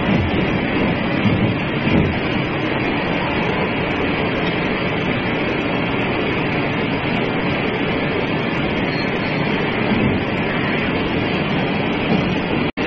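Steady, even heavy-machinery noise from the forge's power-hammer plant, with no distinct hammer blows. It cuts out for an instant near the end.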